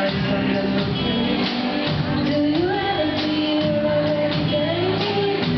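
A live band plays a pop song: a female singer over guitars, keyboard and a drum kit keeping a steady beat.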